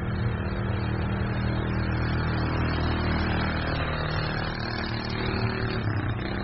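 Polaris Ranger RZR 170 youth side-by-side's small single-cylinder four-stroke engine running steadily as it drives past close by, about four seconds in.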